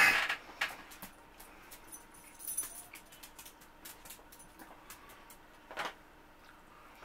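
A man puffs out a heavy breath through pursed lips, a sign he is too full to eat more. Then come small clicks and light rustling as he handles the food and its packaging, with another short burst of breath about six seconds in.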